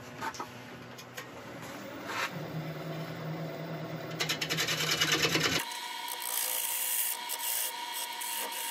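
A gouge scraping across the face of a large Scottish elm platter spinning on a wood lathe: a rubbing, rasping hiss that builds over the first few seconds. About two thirds of the way through, the sound changes abruptly to a brighter, higher hiss with a steady high tone.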